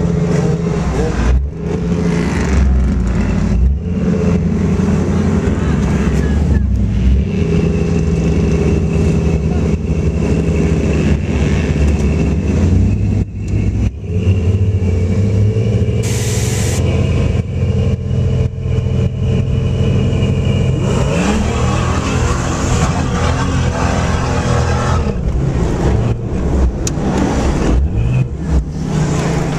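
Car engine heard from inside the cab while driving, running and revving with many knocks and jolts; its pitch climbs steeply about 21 seconds in. A hiss lasting about a second comes about 16 seconds in.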